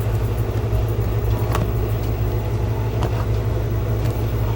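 A steady low mechanical hum, with a few light clicks of packaging being handled.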